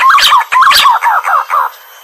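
Green pigeon (punai) calling: a run of loud, warbling whistles that wobble up and down in pitch, stopping shortly before the end.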